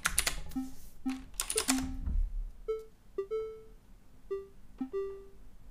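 A simple SuperCollider synth with a percussive envelope, driven by a pattern sequencer, plays short plucked-sounding notes in an uneven looping rhythm with rests. The notes form a little three-note melody, a lower note and then two higher ones. A few computer-keyboard clicks come in the first two seconds.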